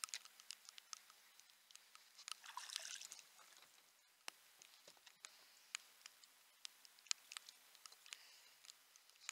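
Faint, irregular ticks of raindrops striking the action camera's waterproof housing, with a brief hiss about two and a half seconds in.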